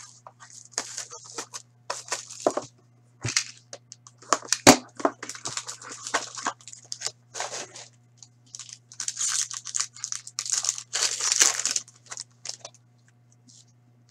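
Plastic shrink-wrap torn off a hockey card box, then foil card packs crinkling as they are handled and opened: irregular bursts of tearing and crinkling, loudest about nine to twelve seconds in, with one sharp knock around five seconds in, over a steady low hum.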